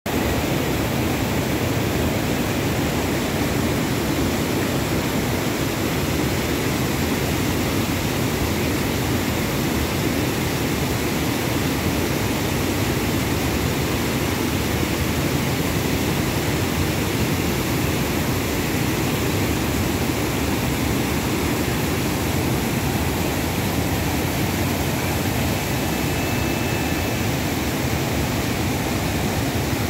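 Steady rush of water spilling over a long, stepped overflow weir and running over rocks in the shallows below.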